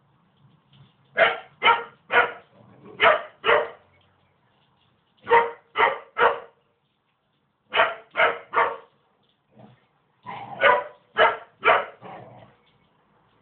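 Puppy barking: about fifteen sharp barks in quick runs of two to four, with short pauses between the runs.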